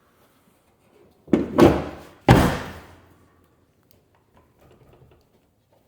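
A Ford Mustang's hood being closed onto its stock hood latch: a first thunk about a second and a half in, then a sharper, louder slam with a ringing fade as it latches.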